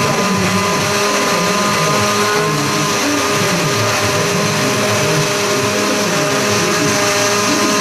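Countertop blender running steadily, pureeing tomatoes, water and serrano chiles into salsa, with a constant motor whine over the churning liquid.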